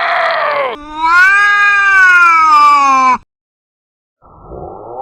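Loud, drawn-out wailing cries, like a yowl: one ending with a falling pitch, a long cry that rises and then sinks, then after a second's pause another that climbs in pitch.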